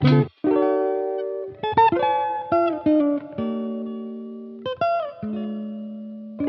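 Background music: plucked guitar chords, each struck and left to ring out.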